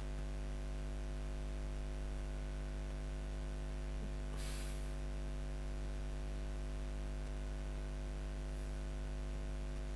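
Steady electrical hum with several fixed tones under a constant static hiss. A brief hiss rises about four and a half seconds in.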